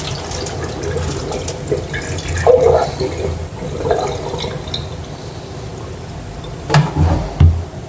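Rice being washed by hand in water: irregular swishing, splashing and dripping, with two louder thuds near the end.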